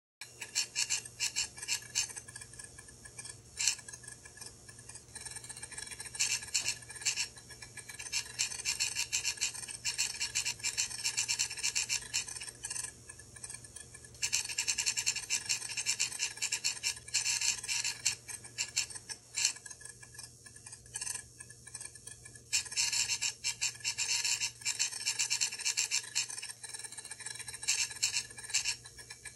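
Recorded seek chatter of a Miniscribe 8425S hard disk, played back by an Adafruit Audio FX Mini sound board through a small Adafruit 3885 speaker. It is rapid, irregular clicking and ticking that comes in busier and quieter stretches, over a faint steady hum. This is an imitation of the classic hard-disk activity sounds of a 68K Macintosh booting.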